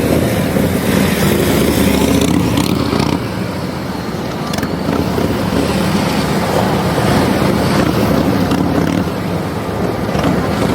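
Motorcycle engine running at low speed as the bike weaves through a slow-speed cone course, a steady low rumble.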